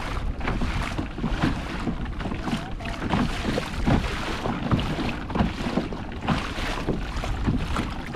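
Sea water slapping and splashing irregularly against the bow of a kayak moving through small chop, with wind buffeting the microphone.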